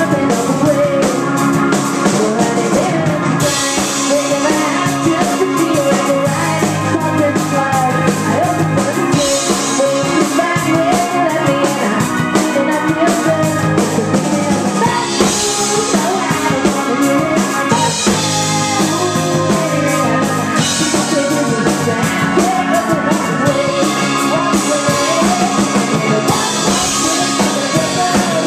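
Rock band playing live on drums, keyboards, guitar and bass, with cymbals washing in for a few seconds at a time.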